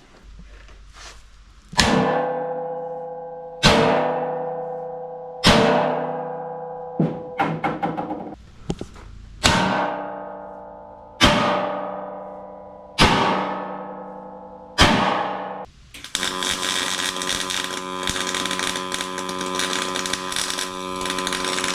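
Sledgehammer blows on the steel frame of a heavy-equipment trailer, hammering a gap closed. There are seven heavy strikes about two seconds apart, with a few lighter taps in the middle, and each one rings out like a bell. In the last six seconds a steady loud noise takes over.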